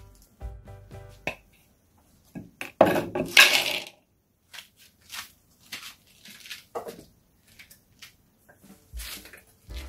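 Raisins poured from a plastic measuring cup into a plastic mixing bowl, a loud rattling pour of about a second, roughly three seconds in, followed by a few light knocks of the cup and bowl.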